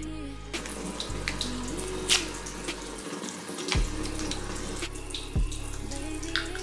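Tap water running into a bathroom sink, starting about half a second in, over background music with a slow deep bass line.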